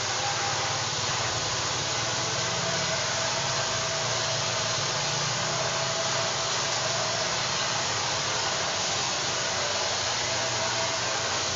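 Handheld hair dryer blowing steadily while blow-drying long hair, a constant rush of air with a faint steady whine.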